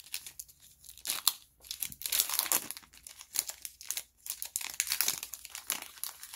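Foil booster-pack wrapper crinkling and tearing as it is ripped open by hand, in irregular bursts with short pauses between them.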